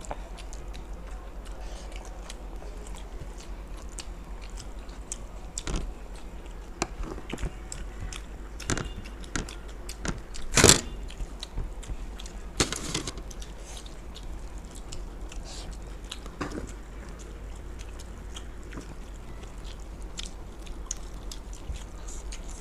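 Two people chewing and eating fried rice and chilli paneer in a timed eating competition, with scattered small clicks and a sharp knock about ten seconds in.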